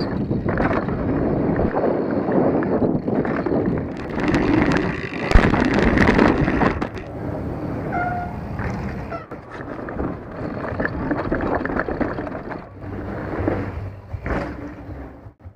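Mountain bike riding over a rough dirt trail: tyres rolling and the bike rattling over bumps, with wind on the microphone and one sharp knock about five seconds in.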